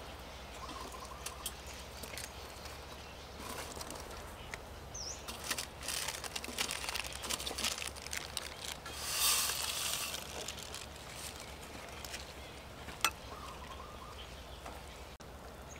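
Quiet outdoor ambience with a steady low hum, a few light clicks, a faint bird chirp about five seconds in, and a short rustle about nine seconds in.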